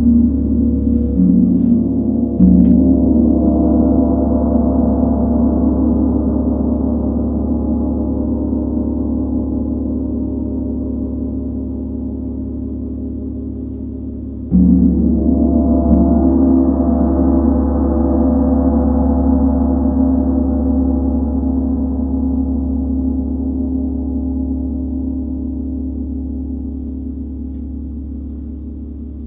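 Large Tibetan gong (model 90ST-II) struck with a round-headed mallet: three light strokes in the first few seconds build up a deep, many-toned ring that slowly fades. A second, firmer stroke about halfway through sets it ringing again, and it fades slowly once more.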